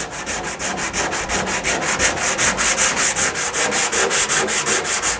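Small pad scrubbed rapidly back and forth over the painted sheet-steel panel of a 1951 Chevy truck, about six strokes a second, rubbing back fresh blue-green paint that came out too bright.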